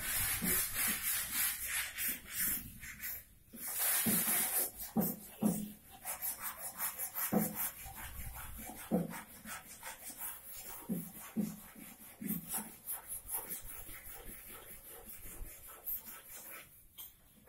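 Repeated rubbing strokes on wooden furniture, in a quick uneven rhythm, with short low squeaks scattered through.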